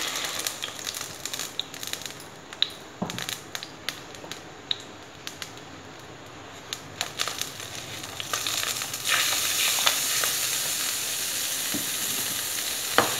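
Ghee and food-coloured water heating in a pan, with scattered clicks and scrapes from a plastic spatula stirring and scraping flour off a plate into the pan. From about eight seconds in, a louder steady sizzling hiss.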